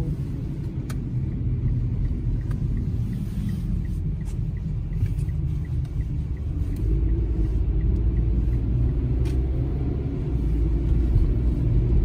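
Car engine and road rumble heard from inside the cabin while driving, with a light, even ticking over the first few seconds. About seven seconds in the rumble grows louder and the engine note rises gently as the car picks up speed.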